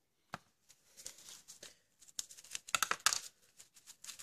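Aluminium foil and rubber-glove wrapping on an improvised oil-filler plug crinkling as it is handled in a gloved hand, in scattered bursts that are busiest near the end, after a single small click.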